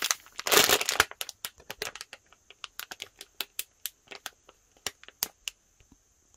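Thin plastic packaging bag crinkling as the squishy inside is squeezed and taken out. A loud crinkle comes in the first second, then scattered sharp crackles that thin out.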